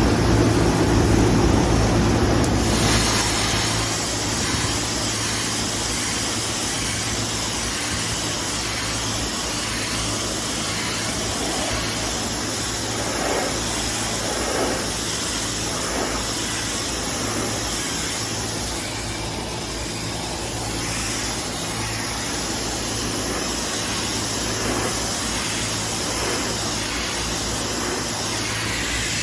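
Rooftop HVAC machinery running: a steady whooshing noise over a low hum, louder for the first three seconds.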